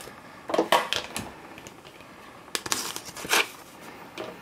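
Plastic embossing folder and cutting plates being slid out of a Big Shot die-cutting and embossing machine and the folder opened to free the embossed cardstock, giving a few short scrapes and rustles.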